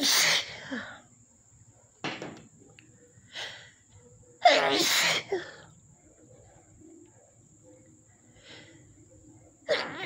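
A woman sneezing loudly over and over in a dust-triggered sneezing fit: a sneeze right at the start, a big one about halfway through and another just at the end, with shorter sharp sounds and breaths in between.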